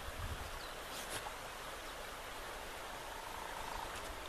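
Steady rush of flowing river water, with a few soft bumps and clicks of the camera being handled in the first second or so.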